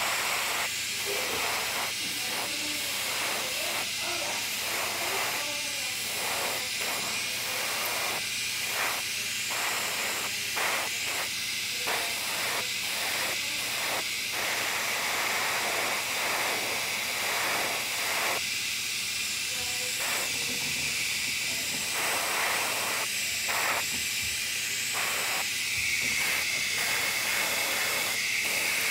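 Airbrush spraying paint in short on-and-off bursts of hiss, the hiss running steadily over the whole stretch.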